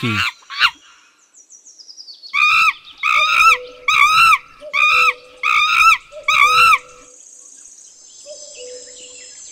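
A monkey calling: a short falling run of high squeaks, then seven loud, high, arching calls in a steady series about two-thirds of a second apart. A faint steady high hiss follows for the last few seconds.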